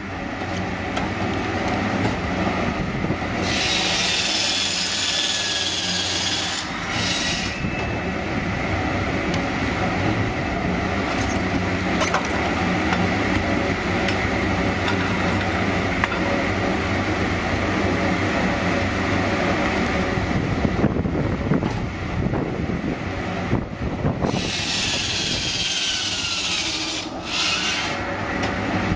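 Automatic log segment saw running, its motor and drive humming steadily. Twice, about three seconds in and again near the end, the blade saws through a log for about three seconds, a louder, higher rasping sound.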